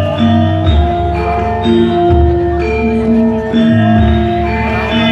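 Javanese gamelan music: metallophones strike a steady melody of ringing notes over deep, held low tones.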